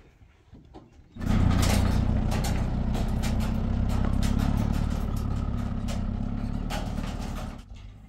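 An engine running loud and close, with a low, steady hum and some rattling; it starts abruptly about a second in and drops away shortly before the end.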